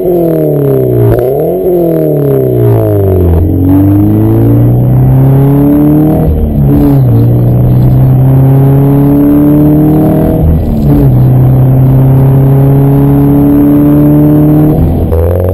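Toyota GT86's 2.0-litre flat-four boxer engine through a JUN BL aftermarket exhaust. It gives two quick free-revving blips, then pulls under hard acceleration, its pitch climbing steadily and dropping at each of three upshifts.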